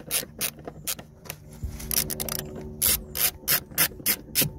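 Screwdriver turning a T20 Torx screw out from under a car door trim panel: a string of sharp, irregular clicks and rasps as the driver is worked, coming faster in the second half.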